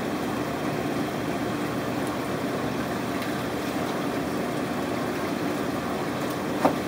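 Steady hum and low rushing noise of fish-room aquarium equipment running, with a short knock near the end.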